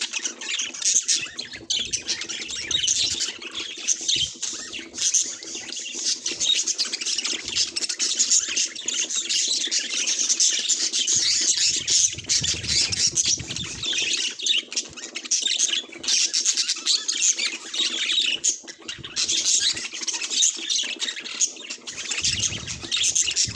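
Several budgerigars chattering and chirping nonstop, many quick squawks and warbles overlapping.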